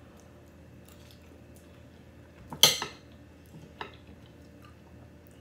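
A metal fork and spoon clinking and scraping on a dinner plate while food is cut. There is one loud clink a little past halfway through and a fainter one about a second later.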